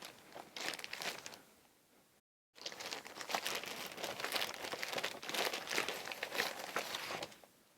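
Cross stitch kit packaging being opened and handled, with crinkling and rustling and some tearing. A few crackly bursts come first, then a brief dead-silent gap, then steady crinkling.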